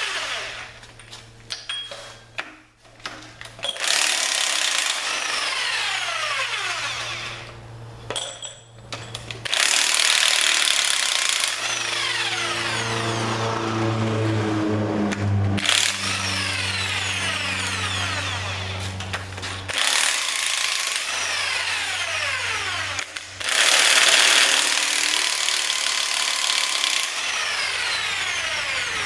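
A power tool loosening the cylinder head bolts of a Ford 302 V8, run in several bursts of a few seconds each, its pitch falling through each run.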